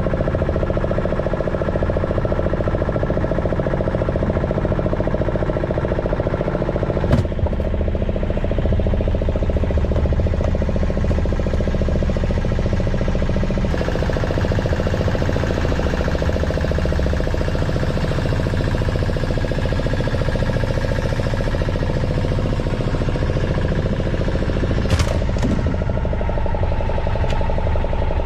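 A fishing boat's engine running steadily with a low, even drone. There is a sharp knock about seven seconds in and another near the end.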